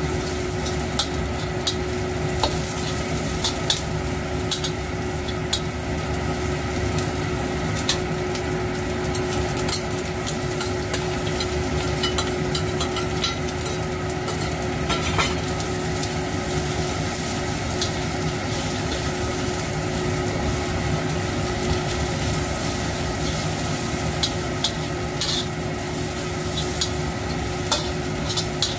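Food sizzling as it is stir-fried in a stainless steel wok, a metal spatula turning and scraping it, with frequent short clicks of the spatula against the pan.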